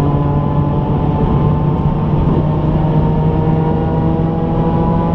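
BMW E46 M3's S54 straight-six, heard from inside the cabin, pulling at steady, nearly constant revs over a steady rush of road noise.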